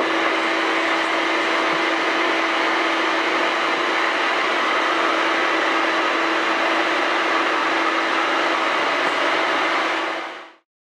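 Steady whir of the blower on a bucket bean cooler drawing air through freshly roasted coffee beans, with a constant low hum under it. It fades out near the end.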